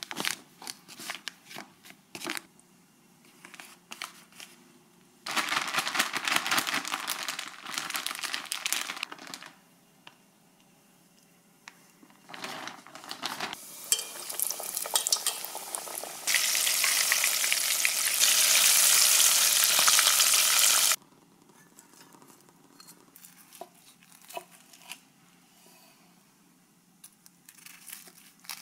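Seasoned flour and chicken rustling in a plastic bag. Then a flour-coated chicken piece goes into hot oil in a stainless steel pot: bubbling that builds to a loud, steady deep-frying sizzle, which cuts off suddenly about 21 seconds in. A few faint knife taps on a cutting board come near the end.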